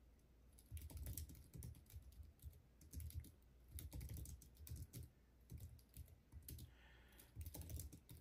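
Faint typing on a computer keyboard, in several short runs of keystrokes with brief pauses between.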